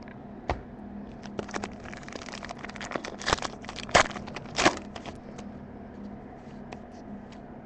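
Foil Panini Select trading-card pack being torn open and its wrapper crinkled, with scattered crackles and a few sharper rips about three to five seconds in, over a faint steady hum.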